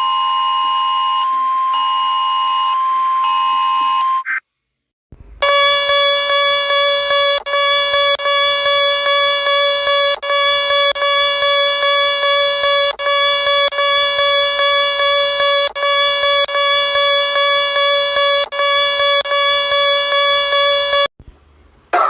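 Synthesized emergency-alert alarm tones. A high steady beeping tone stops about four seconds in. After a short gap, a lower alarm tone starts, pulsing rapidly with a brief break every few seconds, and cuts off near the end.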